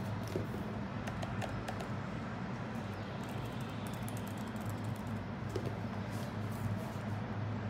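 Scattered clicks of keys being pressed on a Lenovo ThinkPad T16 Gen 1 laptop keyboard, over a steady low hum.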